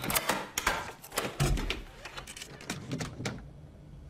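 Door locks and latch being worked from inside: a quick run of sharp clicks, knocks and rattles for about three seconds as the door is unlocked and opened, then quieter.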